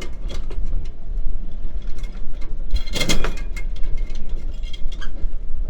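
Anchor chain clinking and clattering at the windlass and chain locker, with a louder clatter about three seconds in, over a steady low rumble; the chain is piled up in the locker and won't feed down through the windlass.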